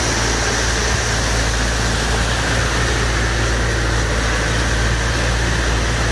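Flood-water pump engine running steadily, with water gushing from its discharge pipe onto the flooded pavement.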